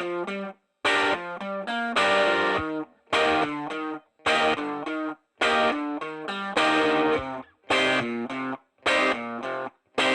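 Background music: a distorted electric guitar with effects playing short repeated phrases with brief gaps between them.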